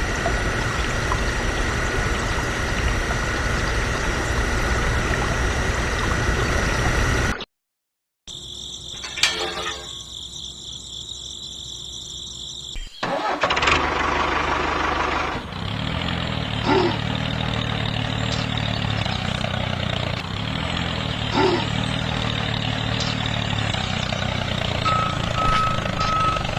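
A tractor engine starting up about halfway through and then running at a steady idle, the sound of the toy tractor as its exhaust puffs smoke. It follows a steady hiss with a held whine, and a repeating beep comes in near the end.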